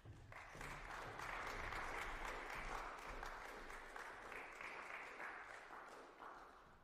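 Audience applauding, building up over the first second and tapering off near the end.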